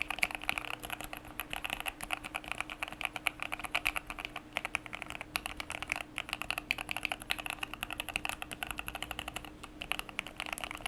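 Fast, continuous typing on a KBD67 Lite mechanical keyboard with lubed EMT linear switches (Krytox 205g0), FR4 plate, PE foam and a one-layer tape mod: alpha keys and spacebar clacking in quick succession.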